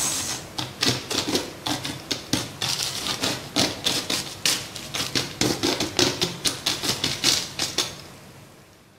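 A metal spoon raking and spreading crisp fried peanuts across baking paper on a tray: a quick run of dry clicking rattles that fades out near the end.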